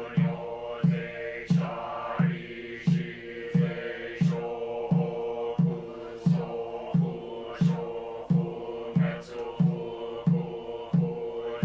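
Soto Zen sutra chanting on a steady monotone, paced by a wooden fish drum (mokugyo) struck evenly about one and a half times a second.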